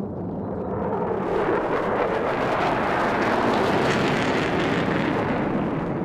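F-15K fighter jet's twin engines on afterburner during a low pass: a loud rushing jet noise that swells to a peak about three to four seconds in, then eases slightly near the end.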